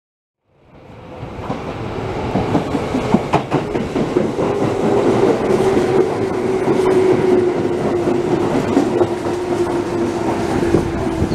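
Tobu 6050 series electric train running past close by along the platform, with wheels clattering over the rail joints and a steady hum that slowly falls in pitch. It fades in over the first second or two.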